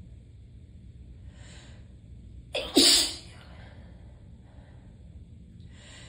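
A person sneezes once during a tickly sneezing fit: a faint inhale about a second and a half in, then a quick catch of breath and a single loud sneeze a little before the middle, with another faint inhale near the end.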